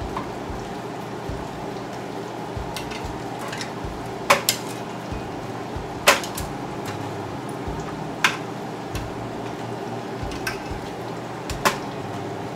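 Metal tongs clinking against the baking pan and oven rack as pork ribs are turned over: about six sharp, brief clinks, some in quick pairs, over a steady low hum.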